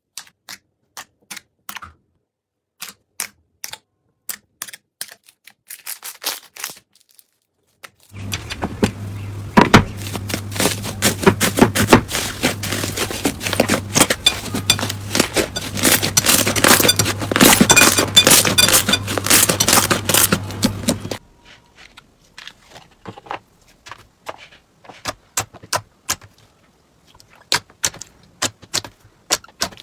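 Slime being squeezed and poked by hand, giving sharp clicks and pops. About eight seconds in it turns to dense, continuous crackling over a low hum, then drops back to scattered clicks after about twenty seconds.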